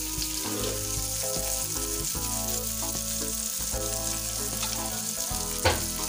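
Chopped onions sizzling in hot oil in a metal kadai as they are sautéed, a steady frying hiss. A single sharp knock comes near the end.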